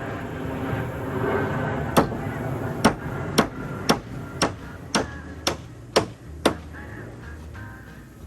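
A hammer driving nails into pine siding boards: nine sharp blows, about two a second, that start about two seconds in and stop shortly after the middle.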